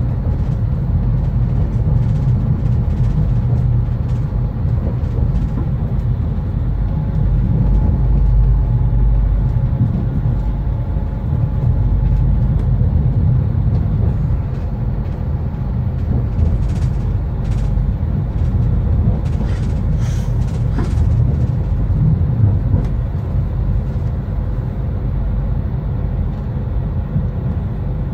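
TER regional train running, heard from inside the carriage: a steady low rumble of wheels on rails and running gear. A run of sharp clicks and knocks comes about two-thirds of the way through.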